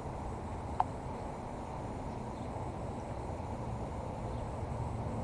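Outdoor background by the water: a steady low rumble with one short, sharp chirp about a second in.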